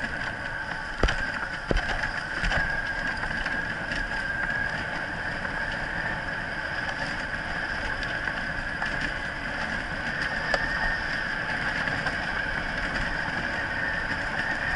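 Wheeled dog-sled rig rolling over a dirt trail behind a running husky team: steady rolling rumble and rattle with a steady high whine, and a couple of sharp knocks from bumps about a second in.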